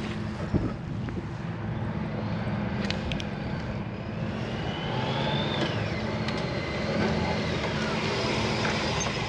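A motorcycle engine running steadily, then rising in pitch as the bike accelerates and falling away at about five and a half seconds as the rider brakes hard to a stop in an emergency-braking drill.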